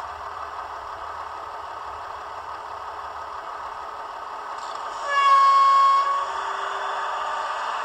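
Digital sound decoder of a Roco H0 model of the DB class 628.4 diesel railcar, playing the diesel engine running steadily through the model's small loudspeaker. About five seconds in, one horn blast of about a second sounds over it.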